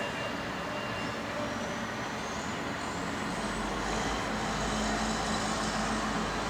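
Street traffic noise, with a heavy vehicle's engine rumble coming in about halfway through and a faint rising whine early on.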